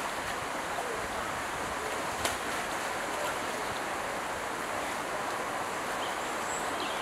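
Steady rush and splash of water in a shallow pool as otters splash and play in it, with one sharp click about two seconds in.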